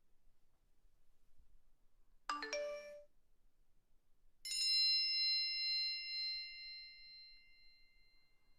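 Sound-effect chimes: a quick cluster of pitched notes about two seconds in, then a single bright bell-like ding about four and a half seconds in that rings on and fades away over several seconds.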